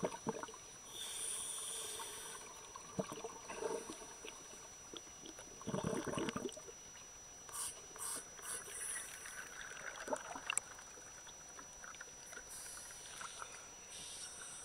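Pool water sloshing and gurgling around a camera at the surface, with small irregular splashes and one louder burst about six seconds in.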